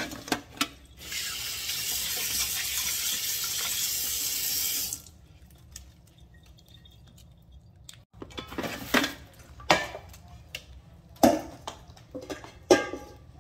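Kitchen sink tap running into a stainless steel bowl holding a raw pork roast for about four seconds, then shut off abruptly. Then a few sharp knocks and clatters as the bowl and meat are handled.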